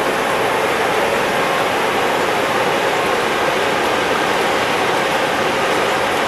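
Steady rush of flowing river water, an even hiss-like noise with no breaks.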